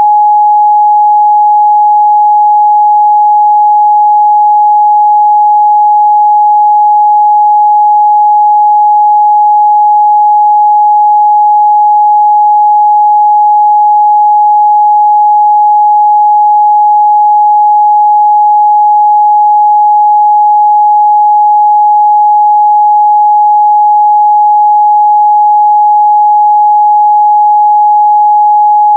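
Pure 838 Hz sine-wave test tone, held steady at one pitch and loudness with no other sound.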